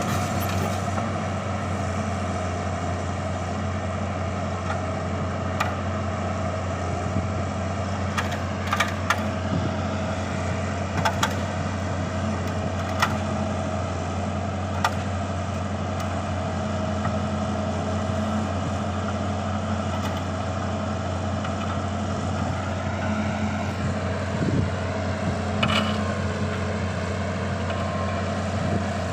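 Tugboat diesel engine running steadily with a deep, even hum while the barge is cast off. There are a few short knocks in the middle and a few near the end.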